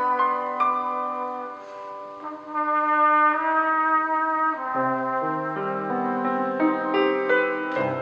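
Cornet playing a slow solo melody of long held notes.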